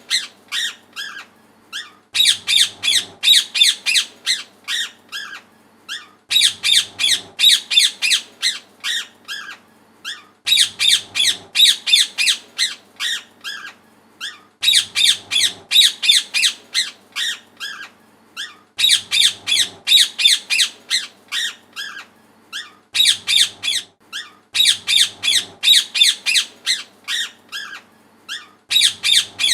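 Parrot squawking in rapid runs of short, high-pitched calls. Each run of about a dozen squawks lasts a couple of seconds, then tails off into a few scattered calls, and the runs repeat about every four seconds.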